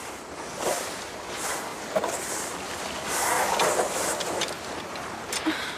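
Skis swishing over snow: a run of hissing swishes that swell and fade, the longest a little past halfway through.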